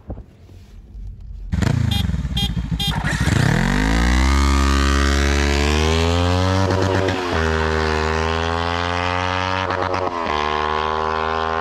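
An engine revving up and accelerating hard. It starts suddenly, with a few sharp clicks, climbs in pitch and holds high, with two brief breaks about seven and ten seconds in.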